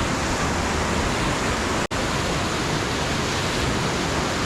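Steady rush of whitewater from river rapids, an even, loud noise with no distinct tones. A sharp, very brief dropout about two seconds in.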